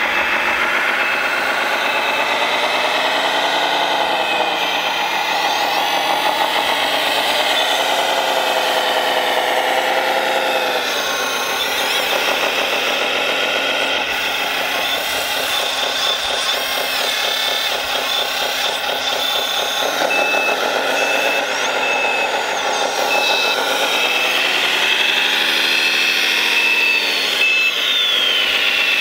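1/14-scale RC wheel loader's sound module playing a simulated diesel engine, revving up and down as the loader drives and works its bucket. A reversing beeper sounds in pulses in the second half.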